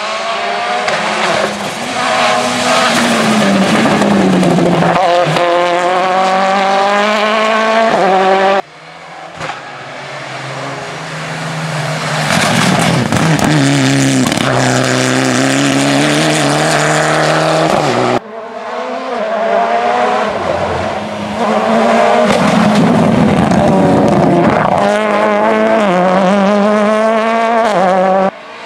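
Rally cars at full throttle on a tarmac stage, one a Mitsubishi Lancer Evolution, heard in three passes that cut off abruptly one after another. Each engine climbs in pitch, drops at a gear change and climbs again as the car approaches and goes by.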